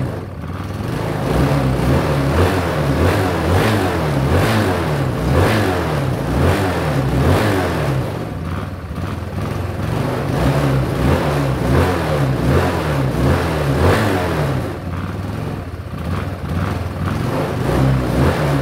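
Yamaha Cygnus scooter's single-cylinder four-stroke engine, just fitted with a full performance kit, running and revved again and again by twisting the throttle, its pitch rising and falling in quick blips.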